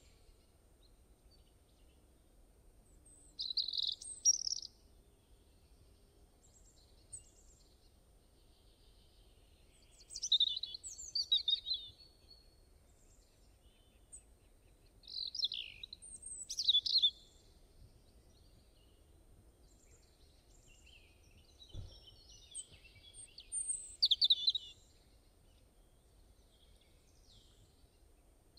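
Small songbird singing from a stock birdsong sound effect: four short bursts of high chirps and trills, several seconds apart, with near quiet between them.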